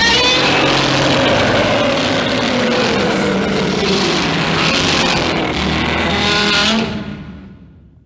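Godzilla's roar, the 1984 version of the film sound effect: one long, loud roar with a wavering pitch that cuts in suddenly and fades away over its last second or so.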